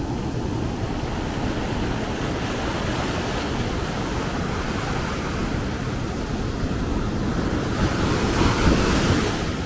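Heavy surf rushing and washing up the shore in a continuous roar of foam and water. Near the end a wave breaks close by, the loudest moment.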